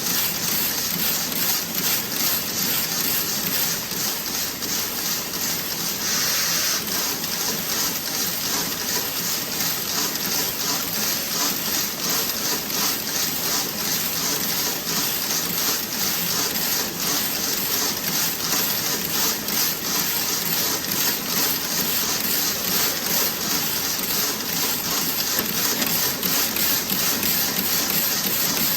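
Toe-sock knitting machine running: a steady, fast, even mechanical clatter, with a short hiss about six seconds in.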